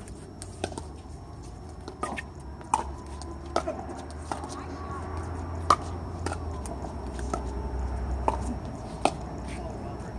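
Paddles hitting a hollow plastic pickleball during rallies: sharp pops at irregular intervals, one especially loud about halfway through.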